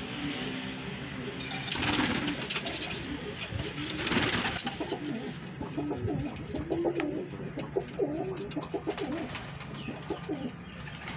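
Domestic pigeons cooing, many overlapping wavering coos through the second half, with two short rushes of noise about two and four seconds in.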